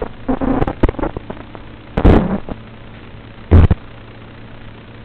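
A steady low electrical hum broken by loud, sudden crackling bursts of noise: a cluster about half a second in, the biggest about two seconds in and another about three and a half seconds in.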